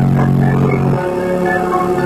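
Hip-hop track played loud through a car audio system with two Skar Audio VVX12 12-inch subwoofers. Heavy sustained bass notes play for about the first second, then the bass drops out, leaving higher melody notes.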